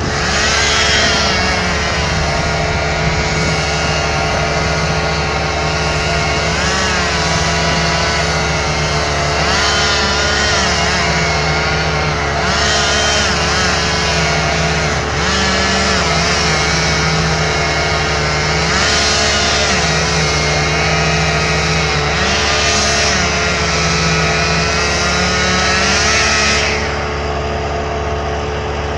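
Chainsaws running, their engine pitch rising and falling as they are revved again and again, then easing off near the end.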